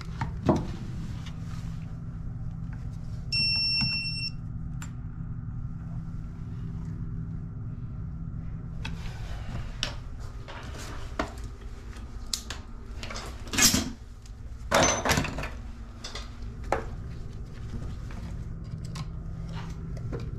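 Tools and wiring being handled at an opened outlet box: scattered clicks, rustles and knocks, the loudest two about 14 and 15 seconds in. About three seconds in comes a single electronic beep lasting about a second, over a low steady hum.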